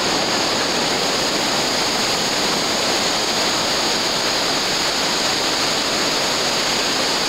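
River rapids: whitewater rushing over rocks, steady and unbroken.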